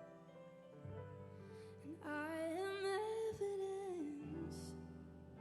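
Worship band music: sustained instrumental chords, with a singer holding one long, wavering note from about two seconds in to just past four.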